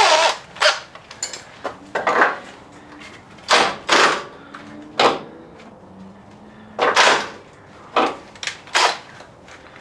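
Cordless drill run in repeated short bursts, its bit grinding against steel to ream out a tapered hole in the winch carrier that is too tight for the shackle.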